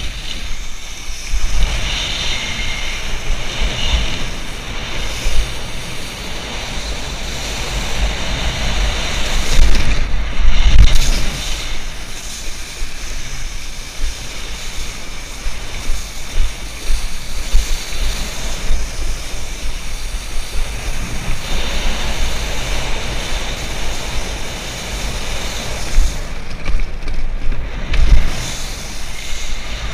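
Wind buffeting a helmet-mounted camera's microphone over the steady hiss and splash of water spraying off a wakeboard being towed across a lake. The wind rumble swells in louder gusts, strongest about ten seconds in and again near the end.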